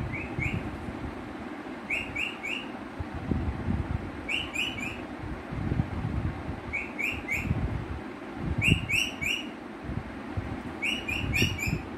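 Rose-ringed parakeet calling in short, sharp chirps that come in quick sets of three, about every two seconds, over a low background rumble.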